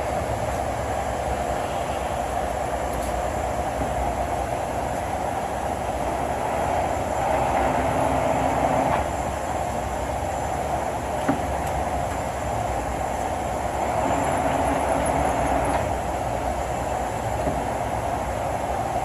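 1955 King 52-inch vertical turret lathe running under power: a steady mechanical running sound that grows louder twice for about two seconds, once about a third of the way in and again near three-quarters, with a single click near the middle.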